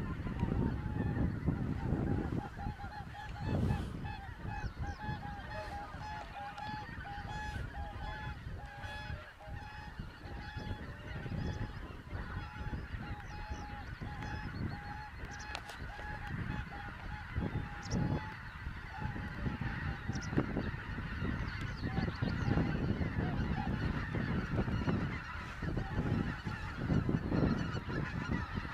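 A large flock of wild geese calling together: a dense, continuous chorus of many overlapping honks and yelps.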